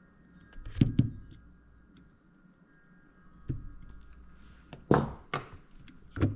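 Sharp clicks and knocks of small hand tools, such as wire cutters and strippers, being handled while preparing drone wires: a pair about a second in, one at about three and a half seconds, and several more near the end.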